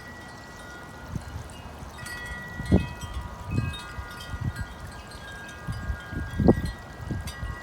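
Wind chimes ringing with several long, overlapping tones, while gusts of wind buffet the microphone, the strongest about a third of the way in and again near the end.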